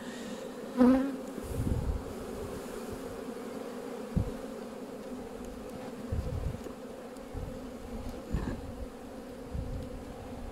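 Honeybees buzzing steadily over the opened hive's frames, a continuous hum, with a few low thumps along the way.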